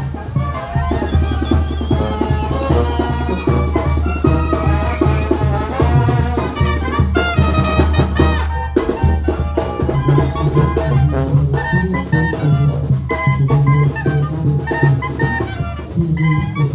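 Oaxacan brass band playing live: brass melody over a steady beat of drums.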